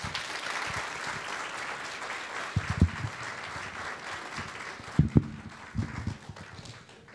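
Audience applauding, dying away near the end, with a few low thumps about three and five seconds in.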